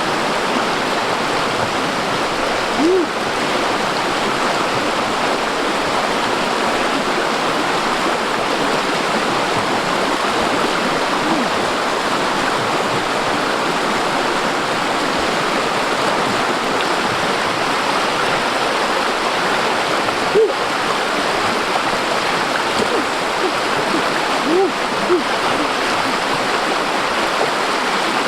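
Steady rushing of a flowing stream, with a few brief watery plops.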